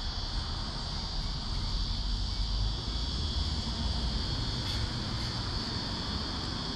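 Steady high-pitched insect chorus, with a low rumble underneath.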